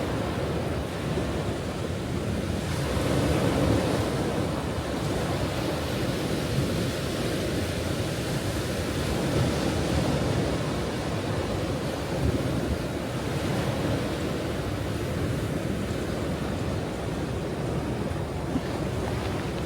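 Ocean waves washing onto a shore in a continuous surf, swelling and easing gently, with wind on the microphone adding a low rumble.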